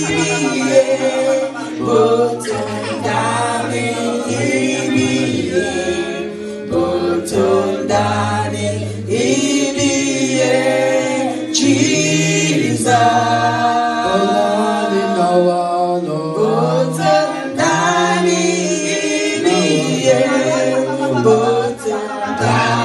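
A man's and a woman's voices singing a gospel worship song together through microphones, with no instruments. The singing runs on without a break.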